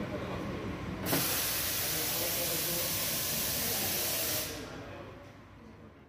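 A Victoria Arduino White Eagle espresso machine releasing steam. A low steady running noise is followed about a second in by a click and a sudden loud, steady hiss that lasts about three and a half seconds and then tapers off.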